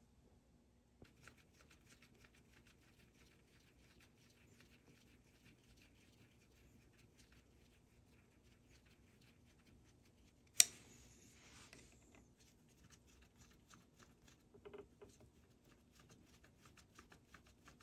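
Faint scratching, ticking and light handling noises of someone working on parts by hand. A single sharp clack comes about ten seconds in, followed by a brief rattle, and a few softer knocks come a few seconds later. A faint steady hum runs underneath.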